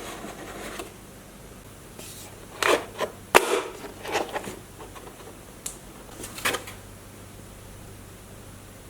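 A run of short handling noises: knocks, clicks and scrapes, as of packaging or a plastic toy being handled, with the sharpest click about three and a half seconds in.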